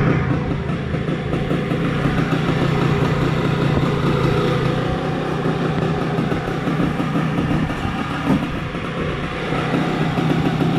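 Yamaha SS110 motorcycle engine running steadily with a gritty, sandy-sounding noise from its bearings, which the mechanic takes as the sign of worn bearings needing an overhaul.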